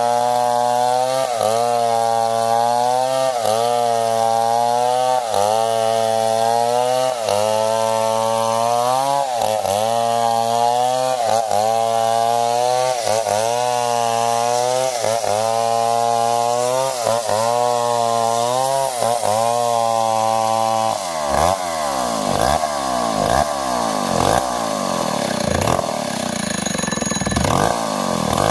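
Stihl 070 two-stroke chainsaw cutting through wood under load. Its engine pitch dips and recovers about once a second. About 21 seconds in, it changes to quicker rising and falling revs.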